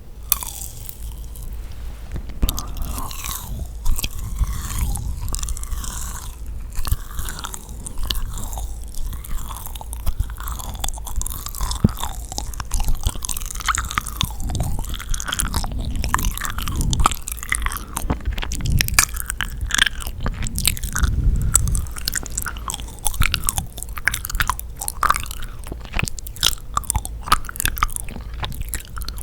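Close-miked chewing of yakgwa, the sticky, dense Korean honey pastry: continuous irregular wet, sticky mouth smacks and soft bites.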